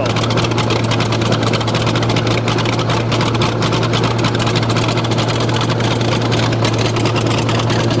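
Old bulldozer engine running at a steady idle close to its exhaust stack, soon after being started from cold in the frost.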